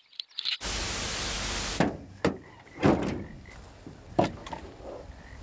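Chainsaws being lifted out of a packed row, their hard bodies and handles knocking together in several sharp clunks. A loud rush of noise about half a second in lasts roughly a second before the clunks.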